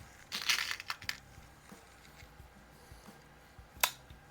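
Crosman Mark I CO2 target pistol: a short stretch of handling noise about half a second in, then one sharp pop of a shot near the end.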